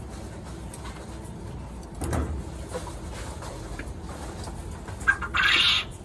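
Handling noises while working with puppy pads and scissors. There is a knock about two seconds in, then a sharp click and a short, loud rustle near the end.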